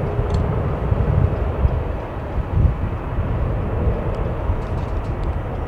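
Airbus H145 twin-turbine helicopter hovering low, heard as a steady, deep noise of rotor and engines, with a few faint ticks near the end.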